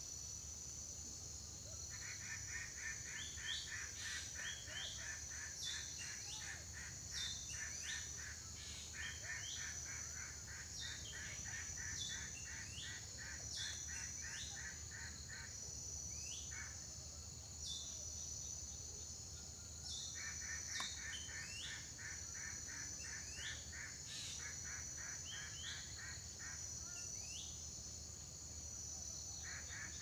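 Pine forest ambience: a continuous high-pitched insect drone, with short rising bird chirps scattered throughout. Four times, a rapid pulsing trill runs for several seconds, then stops.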